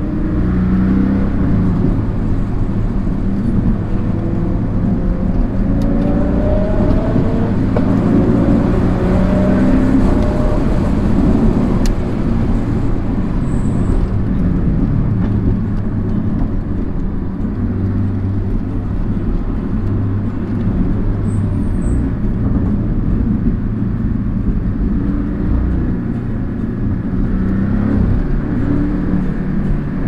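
Porsche sports car's engine heard from inside the cabin, running steadily along the road with tyre and road noise beneath. The revs rise for a few seconds partway through.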